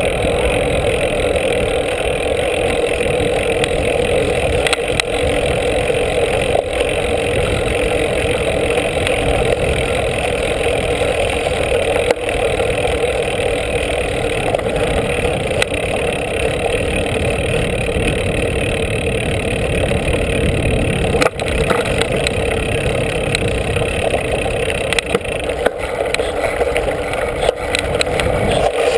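Steady muffled rumble of a mountain bike's knobby front tyre rolling over asphalt and then gravel, picked up by a camera mounted on the bike, with a few sharp knocks from bumps along the way.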